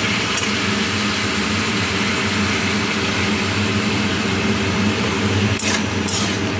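Kitchen exhaust fan running: a steady, loud electric motor hum with a rushing hiss. Two brief metallic scrapes near the end.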